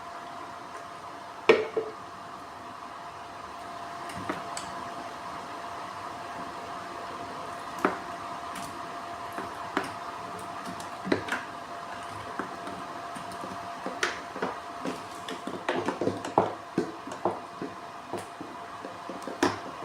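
A steady machine hum with a constant tone, under scattered clicks and knocks of small parts being handled. The sharpest knock comes about a second and a half in, and a quick run of clicks comes near the end.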